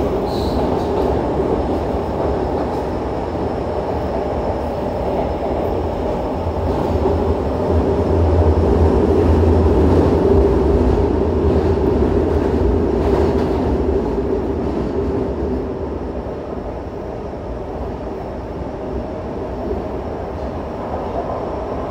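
Yokohama Blue Line 3000A subway car with Mitsubishi GTO-VVVF traction equipment running between stations, heard from inside the car as a steady mix of wheel and motor noise. It grows louder about a third of the way in and eases off in the second half.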